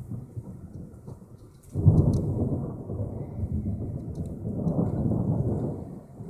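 Thunder rumbling: a sudden loud peal about two seconds in that rolls on, with a second swell a few seconds later.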